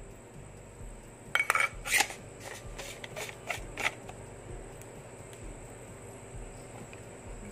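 The battery compartment of a Platinum U20 handheld wireless microphone being closed over its AA battery: the handle sleeve clicks and scrapes into place in a quick run of clicks lasting about two and a half seconds, starting about a second in.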